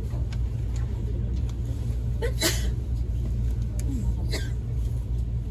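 Steady low hum of a Nankai 50000 series electric train, with a few brief squeaks that sweep down in pitch, about two and a half and four seconds in.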